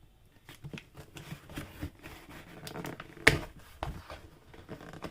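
Rustling and scraping of a delivery package being handled and opened, with scattered clicks and one sharp knock about three seconds in.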